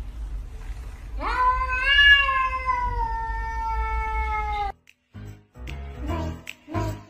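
A domestic cat's single long meow, starting about a second in, rising in pitch and then slowly falling over about three and a half seconds before cutting off suddenly. Background music with a steady beat follows near the end.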